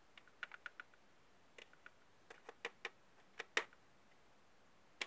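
Small plastic toys handled against a plastic toy dollhouse: faint, light clicks and taps in irregular little clusters, the loudest about three and a half seconds in.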